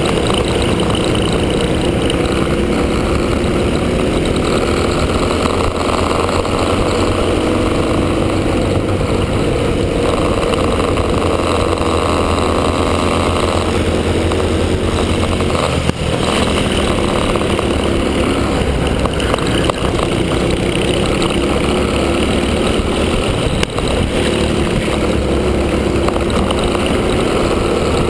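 Onboard sound of a Honda Cadet kart's single-cylinder Honda GX160 four-stroke engine running at racing speed. It is loud and continuous, and its note repeatedly dips and climbs as the kart slows for corners and accelerates out of them.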